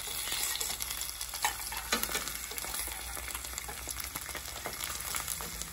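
Eggs sizzling steadily as they fry in a stainless steel pan greased with cooking spray. A spatula scrapes against the pan a few times, with sharp strokes about one and a half and two seconds in, as the eggs are pushed apart.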